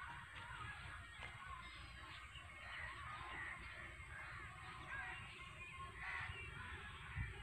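A faint chorus of many birds chirping and calling in the trees, with a low rumble underneath.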